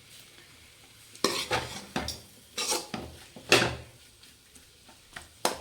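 A cooking spoon scraping and knocking against a pan while capsicum pieces are stirred and sautéed: about five short, sharp scrapes spread apart.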